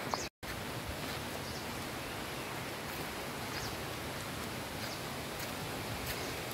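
Steady, even forest ambience, a rushing hiss like wind through the trees, with a few faint short high chirps. The sound drops out completely for a moment just after the start.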